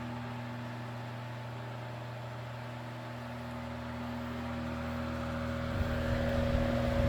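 Mid-to-late-1960s Sears Kenmore 12-inch table fan, made by Knapp-Monarch, running on high: a steady motor hum with the whir of air through the blades. The whir grows louder over the last few seconds.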